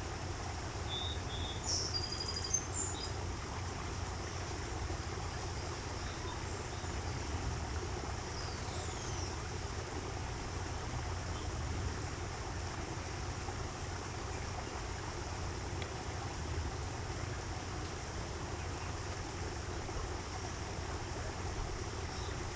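Steady rush of running water from a small stream, with a few short, high bird chirps about two seconds in and a faint falling whistle near the middle.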